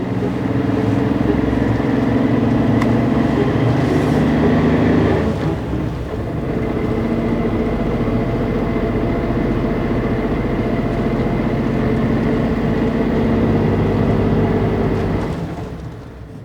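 Suzuki Jimny JB64's three-cylinder engine running steadily under way, with a brief dip in level about five and a half seconds in; the sound fades out near the end.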